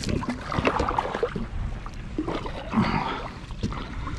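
Kayak paddle strokes dipping and splashing in shallow water, with scattered knocks and clatter in between.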